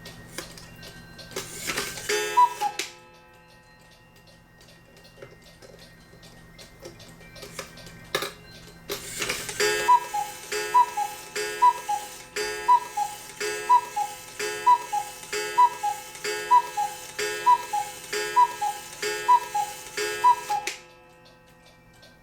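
Black Forest cuckoo clock ticking steadily, then cuckooing: one two-note call with the hiss of the bellows about two seconds in, and a run of about a dozen calls, a little under a second apart, from about ten seconds in. The calls sound clean, with no odd noise, now that the gong has been reset under its screw.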